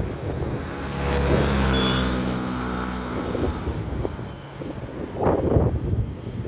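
A vehicle passing by, its hum slowly falling in pitch as it goes past. Wind buffets the microphone about five seconds in.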